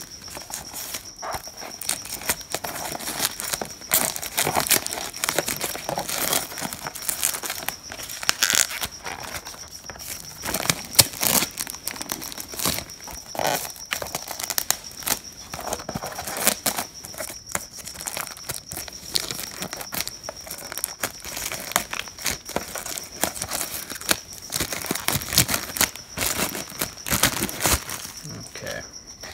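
Plastic shrink wrap being torn and crumpled off a cardboard hobby box: continuous irregular crinkling and crackling with occasional sharper tears. A cricket's steady high trill runs behind it.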